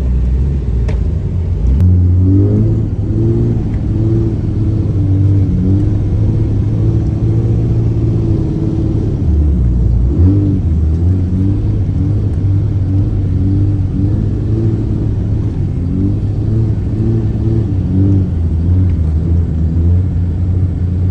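Cummins turbo-diesel pickup engine running under throttle, its pitch rising and falling repeatedly as it is revved up and let off, with a marked dip about ten seconds in.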